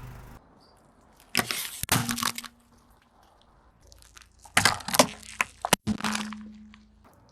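Brittle objects cracking and snapping under a car tyre as it rolls over them, in two bursts of crackling.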